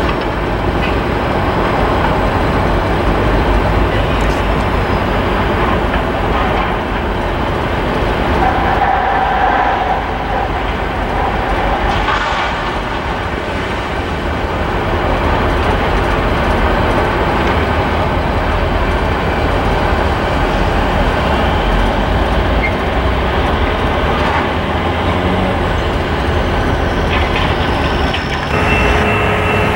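Train passing close by: a loud, steady rumble of wheels rolling on rail, with a few faint held tones near the end.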